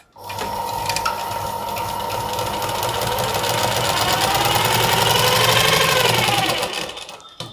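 Sewing machine stitching through two layers of cloth while sewing a double top-stitched seam. It starts just after the beginning, speeds up and grows louder, then slows and stops shortly before the end.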